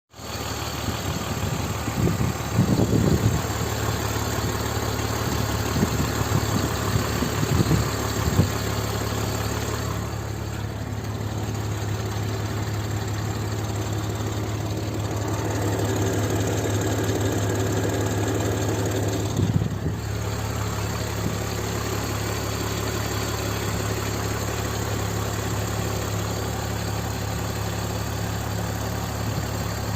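BMW E46 325i's 2.5-litre straight-six engine idling steadily, with a few brief louder moments in the first nine seconds.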